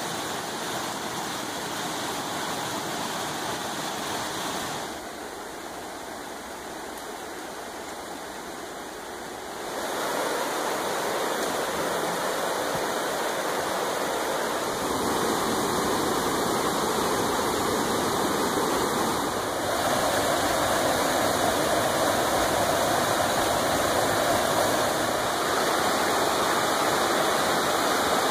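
Rushing water of a rocky whitewater creek pouring over rapids and riffles: a steady, even rush that steps up or down in loudness abruptly several times as the shots change.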